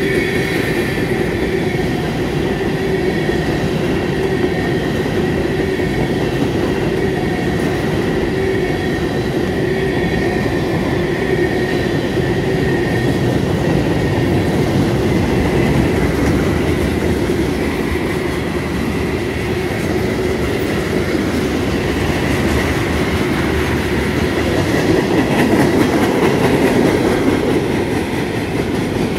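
Freight train cars (covered hoppers, then gondolas) rolling past close by: a steady rumble and clatter of steel wheels over the rail joints, with a thin, steady high-pitched whine from the wheels. It grows a little louder near the end.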